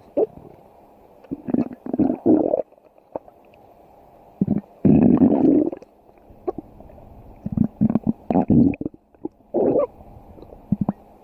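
Stomach growling: a string of irregular rumbles of different lengths. The longest comes about five seconds in, with shorter ones near two, eight and ten seconds.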